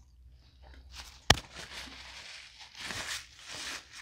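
Crackly rustling of a paper food wrapper being handled, with one sharp knock about a second in.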